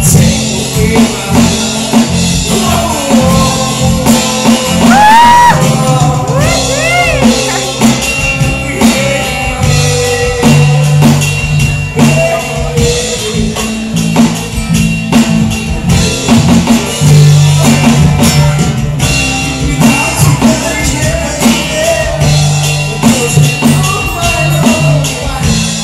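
Live band playing loudly: a male singer's amplified voice over drum kit and electric guitar, the voice sliding up and down in pitch about five to seven seconds in.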